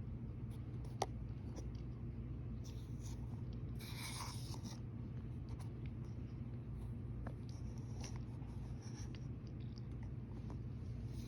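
Scented cornstarch being pressed and rubbed by hand, giving soft squeaks and crunches, with a sharp click about a second in and a brief scratchy rustle near the middle, over a steady low hum.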